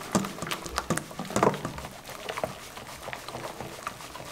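Wire whisk beating a thick, wet batter in a stainless steel bowl: quick, uneven taps and clicks of the wires against the metal over soft squelching.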